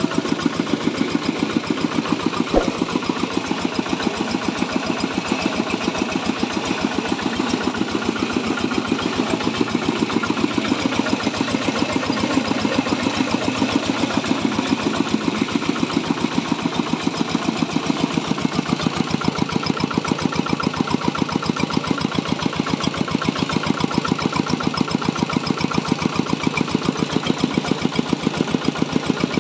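Diesel engine powering a corn grinding mill, running steadily with a rapid, even beat. A single sharp knock about two and a half seconds in.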